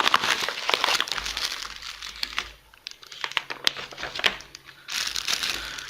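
MRE packaging crinkling and crackling as the pouches and bag are handled. It is dense for the first couple of seconds, quieter in the middle, and picks up again near the end.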